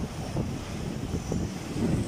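Mediterranean surf breaking and washing up over the sand at the water's edge, with wind rumbling on the phone's microphone.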